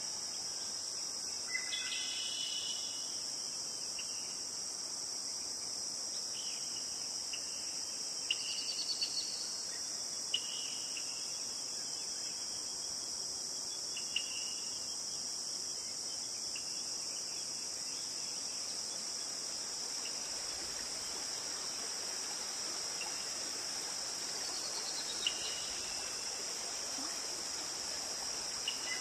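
Steady high insect chorus, like crickets, with a few brief bird chirps scattered through it.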